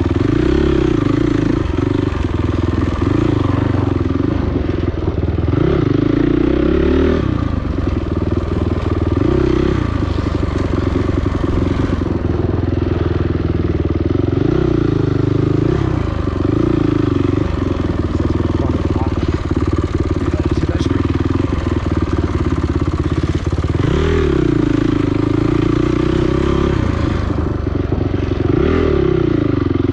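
Dirt bike engine at race pace, its pitch rising and falling again and again as the throttle is opened and closed.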